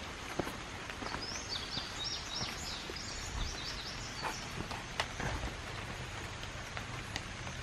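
Steady light rain in woodland, with scattered drips. A songbird sings a short run of high, quick notes from about a second and a half in to about three and a half seconds in.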